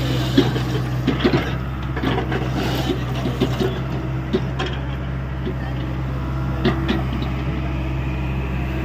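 Hyundai 85A excavator's diesel engine running steadily under work, with scattered knocks and clanks from the working machine.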